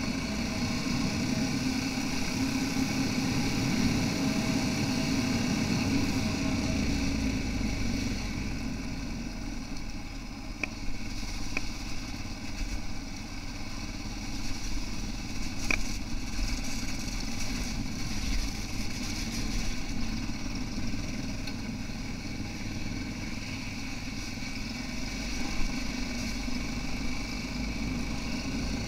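Yamaha XT660R's single-cylinder four-stroke engine running steadily under way on a gravel forest track, heard through a camera mounted on the bike, slightly louder in the first third. A few sharp ticks come a little before the middle.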